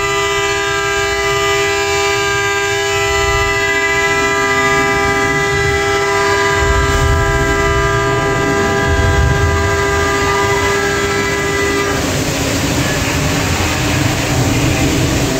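A loud, steady horn-like warning tone on one pitch, held for about twelve seconds over a deep rumble. It stops, and rushing flood water from the set's flash-flood effect takes over near the end.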